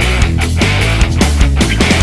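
Loud background rock music with distorted guitar and a steady drum beat.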